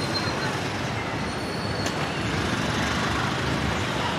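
Steady road traffic noise, an even wash of passing vehicles with no single event standing out.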